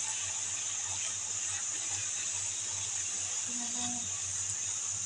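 Puri deep-frying in hot oil in a kadai: a steady sizzling hiss.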